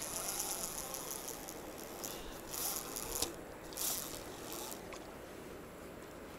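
Small drum reel on a fishing rod clicking on its ratchet as the line runs, in a longer spell of fast fine clicks at the start and two short bursts a little later.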